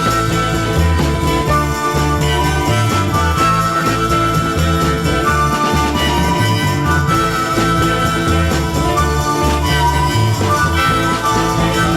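Instrumental break of a 1960s garage-rock song: bass, drums and a sustained lead melody playing with no vocals.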